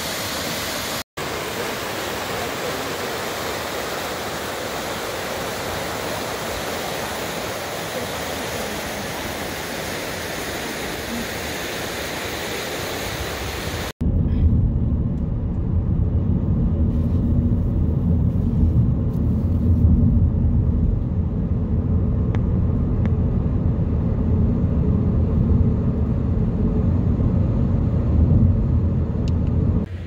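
A steady rushing noise of falling water. About halfway through it cuts to a louder, deep steady rumble.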